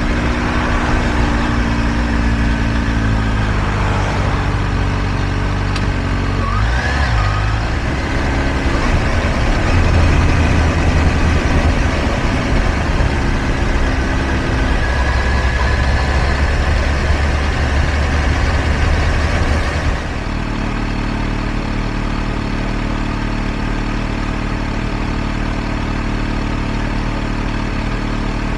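Kawasaki Ninja H2 SX supercharged inline-four motorcycle engine running with wind noise as the bike rides, its pitch falling in the first few seconds as it slows. About twenty seconds in the sound changes abruptly to a steady engine idle.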